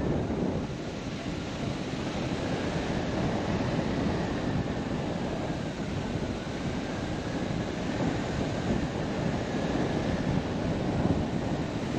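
Steady rush of air buffeting the microphone during paraglider flight. A faint high whistle wavers in pitch through the middle.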